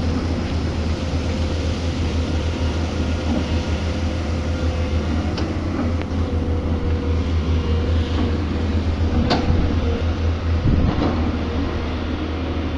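Excavator's diesel engine running steadily, with a steady whine over the low drone and a few sharp knocks about halfway through and near the end.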